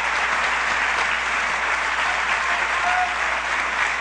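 Large audience applauding steadily in a convention hall.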